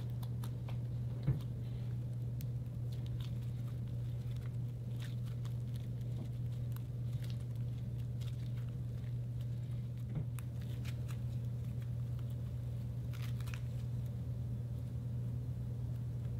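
Slime being kneaded and stretched by hand, giving scattered small crackles, pops and squishes over a steady low hum. One louder thump comes about a second in.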